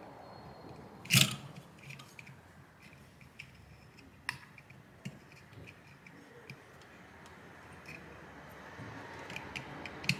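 Plastic clicks, taps and rubbing as a replacement fan is handled and pressed into place on an EVGA RTX 3070 Ti XC3 graphics card. There is one sharp loud click about a second in, a smaller one around four seconds, and light scattered ticks.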